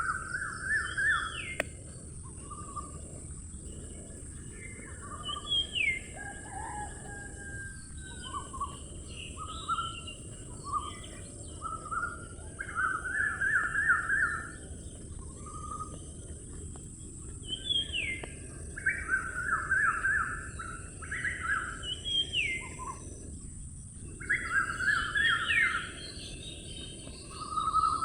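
Songbirds calling outdoors: short, rapid trilled phrases and quick rising whistles every few seconds, over a steady background hiss.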